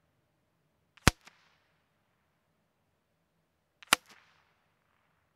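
Two shots from a suppressed Savage Mark II FV-SR .22 LR bolt-action rifle firing CCI standard-velocity rounds, about a second in and nearly three seconds later. Each is a short, sharp report followed by a faint tick.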